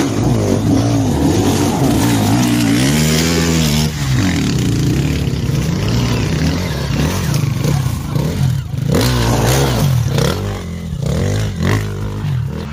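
Enduro dirt bike engine revved hard in repeated bursts, rising and falling in pitch, as the bike is pushed up a steep muddy climb; it fades near the end as the bike moves off.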